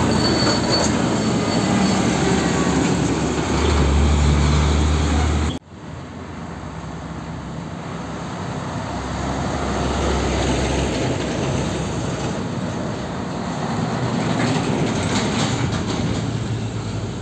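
Mitsubishi Grendia forklift's engine running close by as it drives past, loudest just before the sound cuts off abruptly about five and a half seconds in. Then a Nissan Diesel truck hauling a shipping container approaches with its diesel engine growing louder, followed by more container trucks passing with low rumble and a few rattles.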